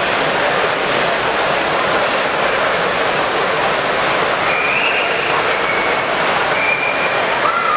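Steady hubbub of a busy exhibit hall, an even crowd-and-machinery noise, with a few faint brief high tones in the second half.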